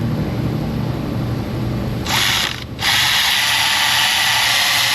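Power ratchet running on a spark plug: a short half-second burst about two seconds in, then after a brief pause a steady two-second run that cuts off suddenly, over a low steady shop hum.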